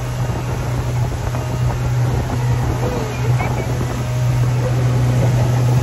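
A speedboat's engine running steadily while under way, a low steady hum, with wind buffeting the microphone.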